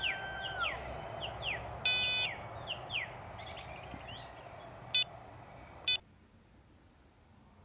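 Equatorial mount's motor whining as an axis slews, the tone falling and stopping about half a second in. Birds chirp, and three loud electronic beeps sound: a longer one about two seconds in and two short ones near five and six seconds, after which the sound cuts off.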